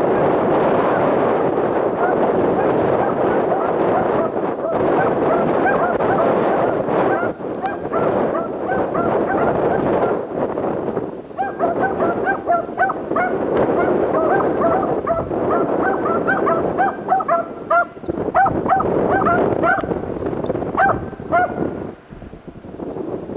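A pack of beagles giving tongue on a rabbit's track: a dense chorus of rapid, short barks and bays, with clearer separate yelps in the second half, thinning out near the end.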